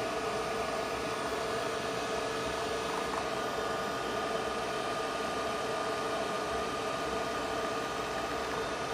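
Steady machine hum with several held tones over a constant hiss, unchanging throughout.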